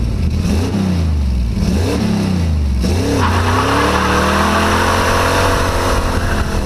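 Car engine revved in several quick blips, rising and falling in pitch, then held as it accelerates with a steadily climbing pitch from about three seconds in.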